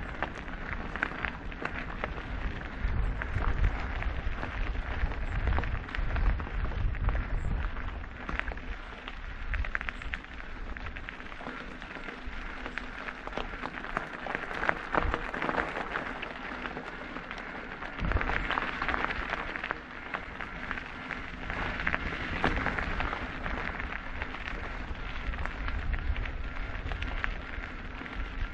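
E-mountain bike riding over a rough, stony trail: continuous crunching and crackling of tyres on gravel and rock, with the bike rattling over bumps and irregular low rumbles.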